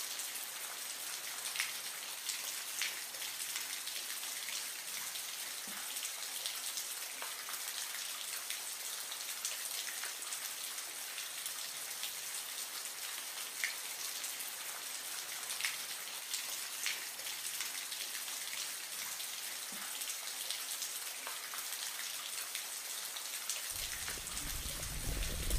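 Steady patter of falling water, like rain: a high hiss with scattered small ticks. Near the end a lower, louder rushing of water comes in.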